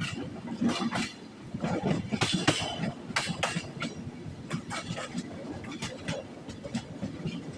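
Passenger train moving on the rails, its wheels knocking and clattering irregularly over rail joints over a low running rumble.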